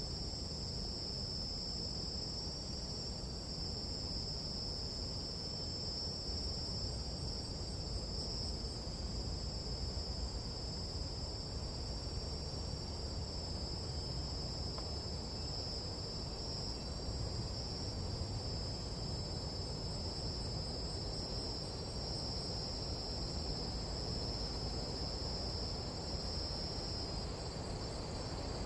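Steady, shrill chorus of night insects, holding two high pitches without a break, over a low rumble.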